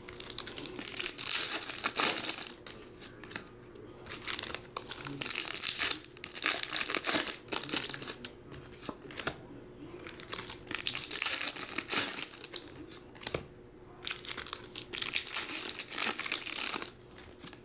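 Foil Pokémon booster pack wrappers being torn open and crinkled in the hands, in several spells of crackly rustling a few seconds apart.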